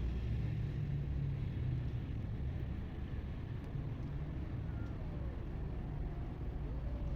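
Steady low rumble of outdoor background noise, with a faint wavering tone rising and falling near the end.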